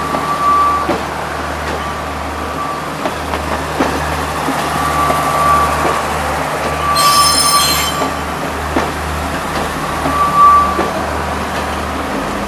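Class S14A diesel multiple-unit train rolling slowly past on departure: wheels squealing in short, thin, high tones off and on, clicking over rail joints, over a steady low drone. About seven seconds in there is a brief, shriller squeal.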